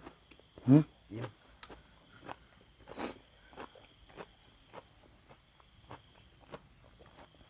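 A person eating: scattered crisp bites and chewing clicks, with a short hissing sound about three seconds in.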